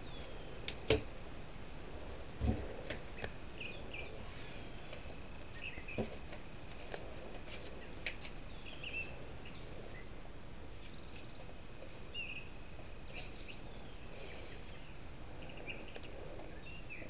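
Paper being folded and creased by hand on a wooden table: a few short knocks and rustles, two of them near the start, with faint high bird chirps in the background.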